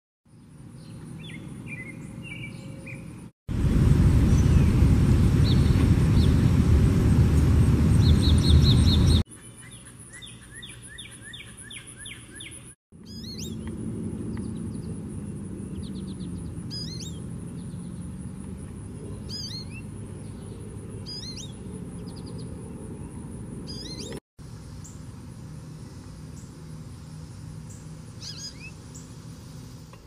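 Wild birds calling and singing outdoors in a string of short clips cut one after another. About three seconds in, a loud rushing noise covers them for about six seconds. It gives way to a fast repeated trill, then to spaced short chirps from an American goldfinch.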